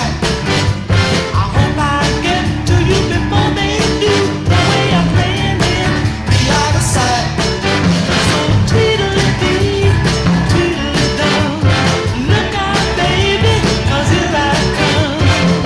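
Rock-and-roll style music with a steady beat, with singing heard over it.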